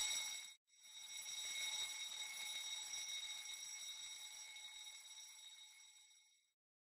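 Electronic fire alarm sounding a faint, steady high-pitched tone, signalling a fire detected in the main engine space. It drops out briefly about half a second in, then fades away and stops near the end.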